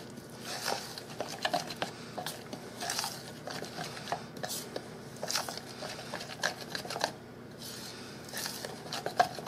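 Light, irregular clicks, taps and scrapes at a plastic mixing bowl as grated parmesan is added to a mayonnaise and mustard mix.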